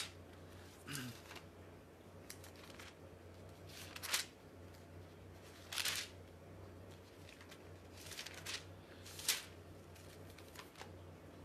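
Book pages being turned and rustled: about six short, dry rustles a second or two apart.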